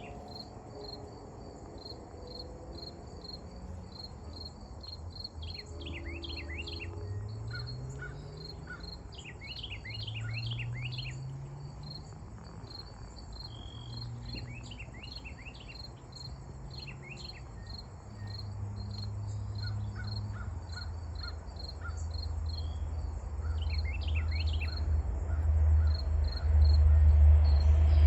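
Insects trilling in steady, even pulses, with birds chirping now and then. Over the last several seconds a low rumble grows steadily louder as a train approaches.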